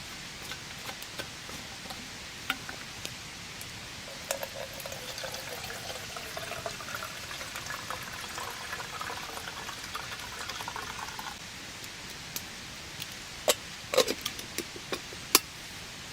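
Liquid poured into a container for about seven seconds, starting about four seconds in, its pitch rising as the container fills. Rain patters with scattered drips throughout, and a few sharp knocks come near the end.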